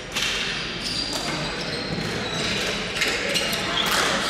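Ball hockey play on a sport-court floor: sticks and ball knocking sharply against the floor several times, shoes squeaking, and players' voices calling out, all echoing in a large hall.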